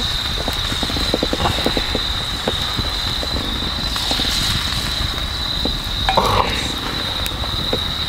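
Wood campfire crackling with irregular small pops, over a steady high insect trill.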